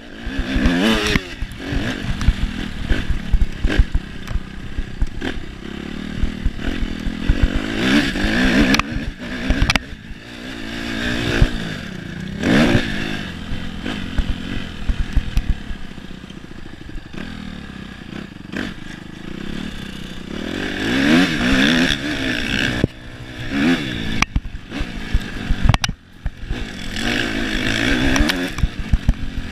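Suzuki RM-Z four-stroke single-cylinder motocross engine revving hard and dropping off again and again as the bike is ridden around a dirt track, the pitch climbing with each pull. Clattering and knocks from the bike over the rough ground run under it.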